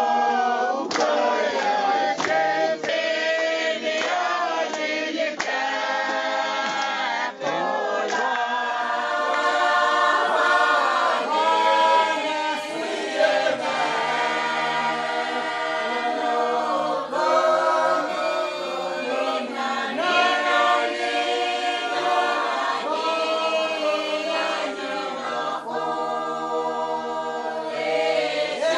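A choir singing a cappella, several voices in harmony.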